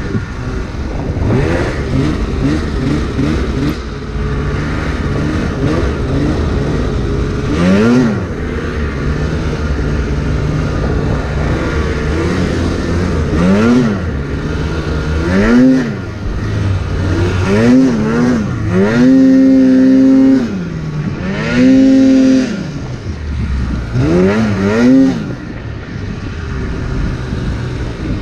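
Two-stroke 800 cc engine of a 2016 Polaris RMK 800 snowmobile running under load in deep snow, revved up and down in a series of throttle blips. Past the middle the revs are twice held high for about a second.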